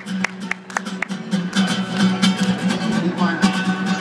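Live band music led by a strummed acoustic guitar in a steady rhythm, over a sustained low bass note.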